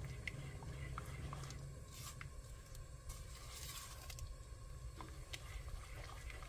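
Silicone spatula stirring a sugar, butter and cinnamon syrup in a pot: soft liquid swishing with scattered light clicks of the spatula, over a steady low hum.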